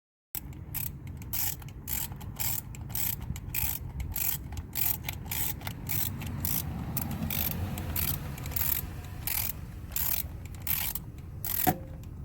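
Ratchet wrench clicking in irregular runs of about three clicks a second as it turns a spark plug out or in through an extension and deep socket, over a steady low hum.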